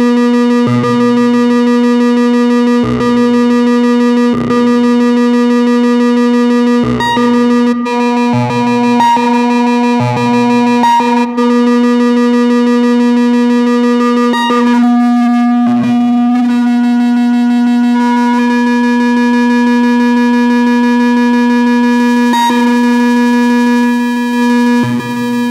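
Moog Mavis and Werkstatt-01 analog synthesizers playing deep ambient music: a steady held drone rich in overtones, with a lower bass note sounding briefly at irregular intervals. The tone colour shifts for a moment about halfway through as a knob is turned.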